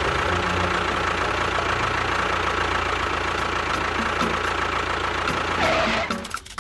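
A small motor running steadily with a faint whine, cutting off about six seconds in.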